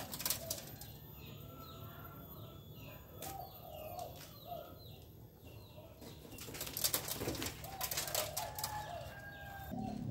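Birds calling in a steady series of short repeated notes, with crackling and rustling from a cover sheet being pulled off a windscreen and folded, loudest about six to seven seconds in.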